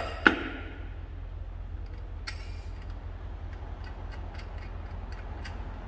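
Metal clinks and taps from hand tools on tractor parts: two sharp ringing clinks at the start, the second the loudest, another about two seconds in, then scattered light ticks over a steady low hum.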